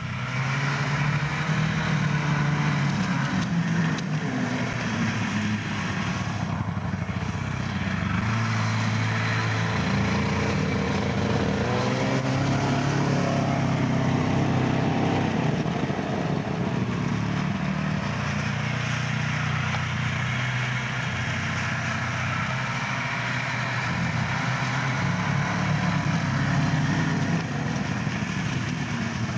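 1972 Ski-Doo Olympique snowmobile's two-stroke engine running as the sled is ridden over snow, its pitch rising and falling with the throttle; a little quieter near the end.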